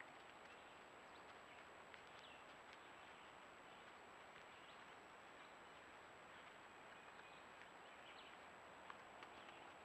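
Near silence: faint outdoor background hiss with a steady high-pitched electronic whine from the trail camera, a few faint chirps and a small tick about nine seconds in.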